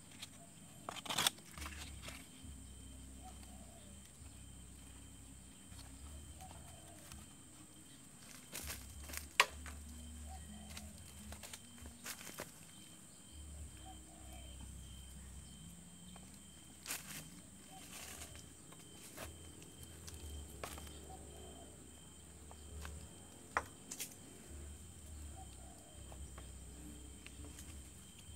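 Scattered sharp clicks, knocks and rustles as paper-pulp egg trays and thin wood sticks are handled and laid on a small fire in dry leaf litter, over a steady high hiss and low hum.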